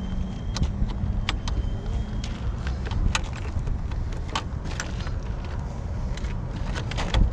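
Scattered metal clicks and clinks of hand tools and loosened parts being worked on a generator's housing, over a steady low rumble.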